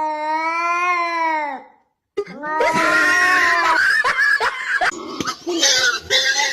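A long, even, scream-like animal call held for about two seconds, then after a brief gap a loud, chaotic jumble of squawks, cries and knocks.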